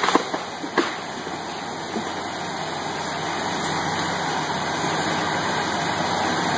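Tractor engine running steadily as it churns through deep mud, growing slowly louder, with a few sharp cracks in the first second as mud sprays up.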